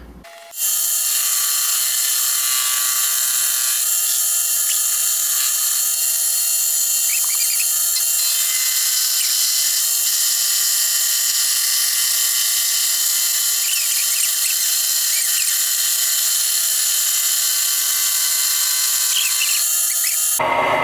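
Nichols milling machine running, its spinning cutter taking a light facing pass across a steel table-nut half: a steady high whine with one clear tone and a hiss from the cut. It starts abruptly just after the start and cuts off suddenly near the end.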